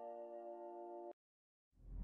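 Faint background music: a sustained, bell-like chord that cuts off abruptly about a second in. After a moment of silence, the next piece starts swelling in near the end.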